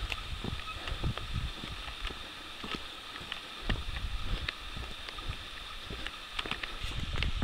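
Footsteps crunching along a dirt forest trail, heard as irregular soft knocks, over the low rumble of a handheld camera being carried while walking.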